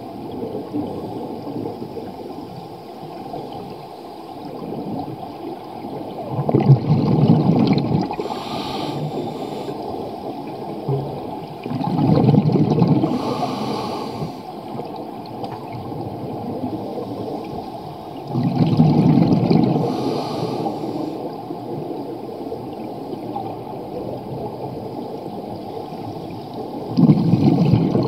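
Scuba diver breathing underwater through a regulator: four surges of exhaled bubbles rumbling past, about every six to eight seconds, each followed by a short hiss, over a steady low underwater rush.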